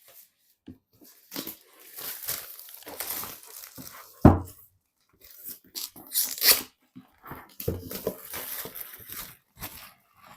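Irregular rustling, scraping and small clicks of hands handling PC parts, with one sharp knock about four seconds in.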